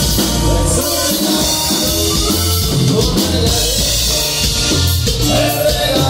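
Loud Latin dance music with singing, drums and a steady, regular bass line, playing for couples dancing.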